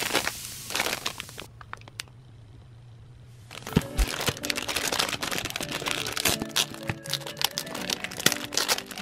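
Clear plastic packaging crinkling and crackling as hands open it and slide a six-ring binder out. A rustle at the start gives way to a quieter stretch, then dense crackling and clicking from about three and a half seconds in.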